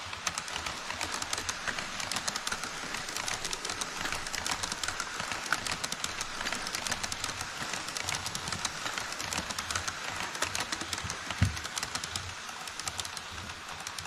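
HO-scale model trains, a container freight train of Koki 104 wagons and an E5 Shinkansen, running across a truss bridge on the layout: a dense, rapid clicking and rattling of wheels on the track. There is a single low thump near the end.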